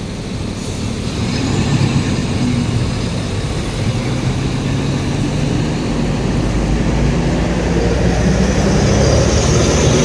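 Diesel engine of a Hino coach pulling away and moving off. A deeper engine rumble builds from about six seconds in as a second coach comes up close.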